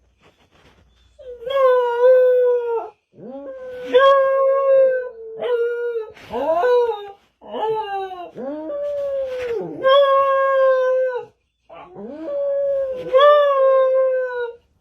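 A dog howling: about half a dozen long, held notes in a row, several of them opening with a quick rising scoop in pitch.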